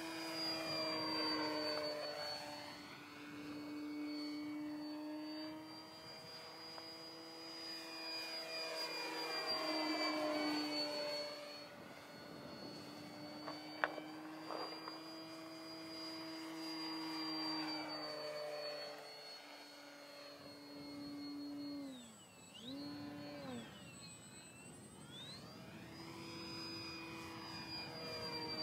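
Electric motor and propeller of an XFly GlaStar RC model plane in flight: a steady buzzing drone with a high whine above it, swelling and fading as the plane passes back and forth. About 22 seconds in, the pitch drops briefly and recovers twice as the throttle is eased off and reopened. A single sharp click comes about 14 seconds in.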